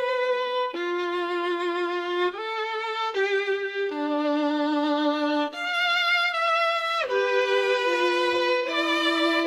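Violin playing a slow melody, one note at a time, with long held notes and vibrato.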